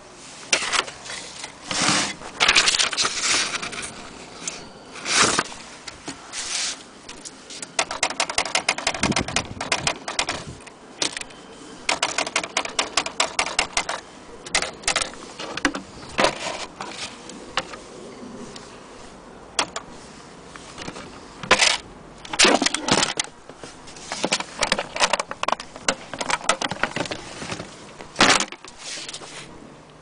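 Corona Standard portable manual typewriter being typed on: quick runs of mechanical key and typebar clacks, with separate louder knocks from handling the machine and its case.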